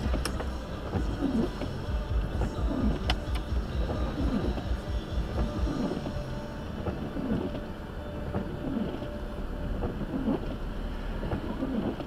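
Car driving on a snowy road, heard inside the cabin: a steady low road rumble with a short sound repeating about once a second.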